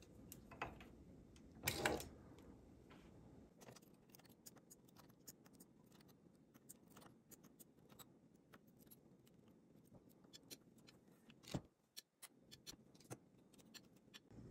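Faint metallic clicks and light taps of a transfer tool against the latch needles of a Singer 328 knitting machine's needle bed, as stitches are bound off by hand. A sharper click comes about two seconds in and another near twelve seconds.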